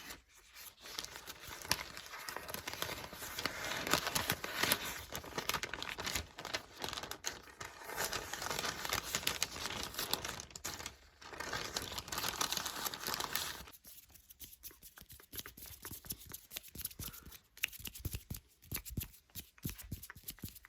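Paper book pages being flipped close to the microphone: a dense run of crinkly paper rustling with two short pauses. About fourteen seconds in it thins to scattered, lighter rustles and ticks.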